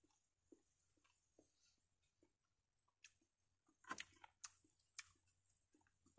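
Faint sounds of a meal being eaten: soft chewing and small clicks, with a few sharper clicks between about three and five seconds in.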